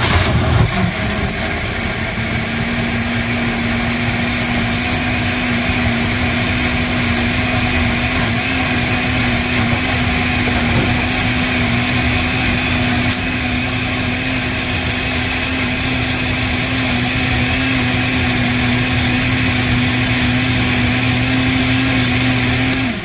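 Electric blender motor running loud and steady, blending tomatillos, serrano peppers and onion into green salsa. It spins up at the start and cuts off near the end.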